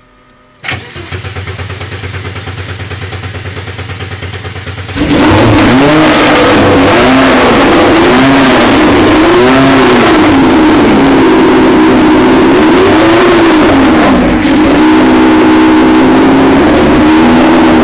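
BMW M12/7 four-cylinder racing engine being started: the starter cranks it with an even pulsing for about four seconds, then it fires and runs loud, revved up and down again and again. Near the end it settles to a steadier run with small blips of throttle.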